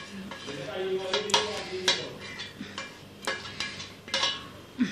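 A metal spoon scraping chicken masala out of a stainless steel pan onto rice, with several sharp clinks and scrapes of spoon against the pan.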